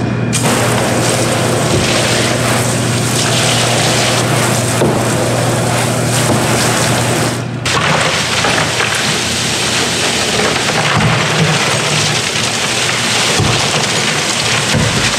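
A hose spray nozzle sprays water into a plastic stock tank, with a steady low hum under it. About seven and a half seconds in, this gives way to ice poured from a bag into the tank, the cubes clattering and splashing into the water.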